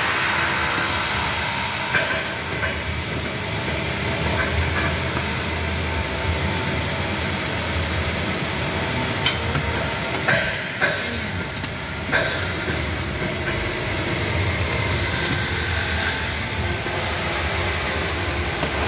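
Steady mechanical drone of running machinery or a fan, with a few sharp metallic clicks and knocks as thick power cables and their crimped lugs are handled and fitted, two of them close together about ten seconds in.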